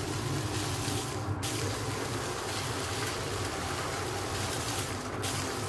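Pan of chili simmering on the stove: a steady bubbling hiss.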